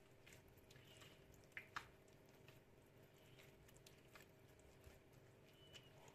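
Faint wet squishing and light clicks of a gloved hand mixing flour into water and oil in a glass bowl to form a soft bread dough, with two sharper clicks about one and a half seconds in.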